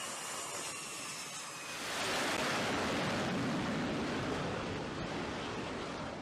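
A steady hiss, then from about two seconds in a louder, even rushing noise of jet engines running on an aircraft carrier's flight deck.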